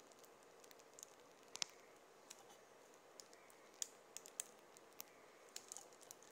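Faint, irregular clicks and crackles from a plastic piping bag being squeezed as cream cheese frosting is piped out in rosettes, with one sharper click about one and a half seconds in.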